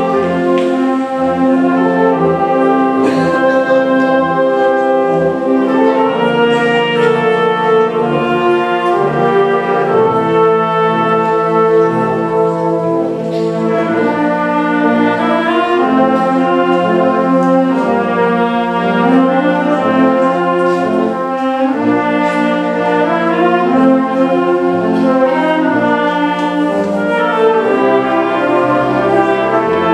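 Concert wind band playing full, held brass-led chords over a moving bass line, the chords changing every second or so.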